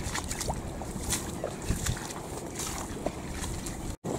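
Wind buffeting the microphone in the rain, a steady low rumble, with a few faint short chirps over it. The sound cuts out for a moment near the end.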